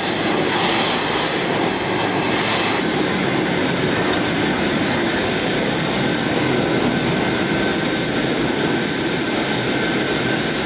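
Steady rushing jet-turbine noise on an airport apron, with a high, steady whine over it; the sound changes character about three seconds in.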